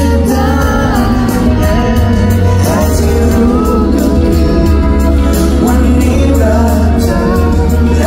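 Live pop song played through a concert sound system, with male voices singing a melody over the band and a strong, steady bass.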